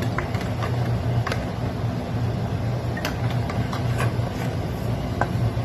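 A steady low mechanical hum, with a few faint light clicks and taps over it.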